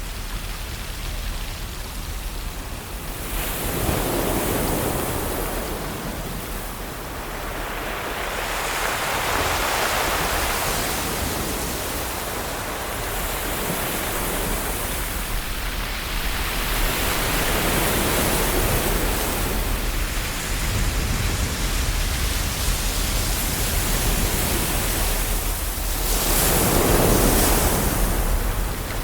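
Ocean waves washing in on the shore, a continuous rush of surf that swells and falls back every several seconds.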